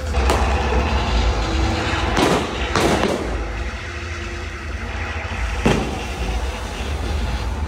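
Live stunt-show effects: a heavy, steady low rumble with four sharp bangs, the set's pyrotechnic blasts, about a third of a second, two, three and five and a half seconds in.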